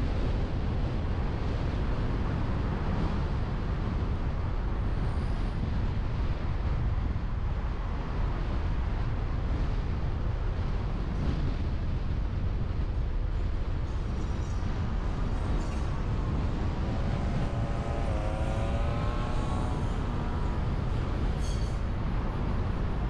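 Steady wind rush and road noise on a car-mounted camera's microphone as the car drives along. In the second half a fainter pitched drone with several overtones wavers and rises for a few seconds.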